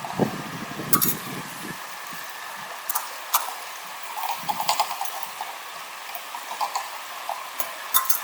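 Water running and splashing, with a few sharp knocks and clatters of equipment being handled, about four of them spread through the stretch.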